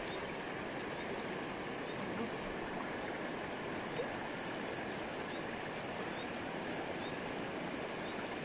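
River water flowing steadily, an even rushing with no breaks.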